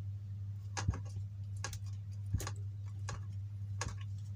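Light, irregular clicks and ticks from hands handling and twisting wire connections on a transformer and lamp-socket board, about five or six in all, over a steady low hum.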